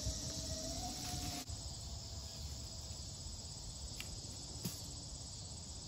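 Insects chirring steadily, with a faint hum that rises and stops about a second and a half in, and two faint clicks near the end.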